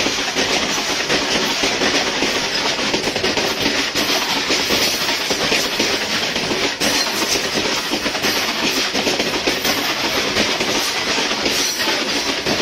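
Freight train of open-top steel box wagons passing close at speed: a steady loud rumble of the wagons with the clatter of their wheels over the rails.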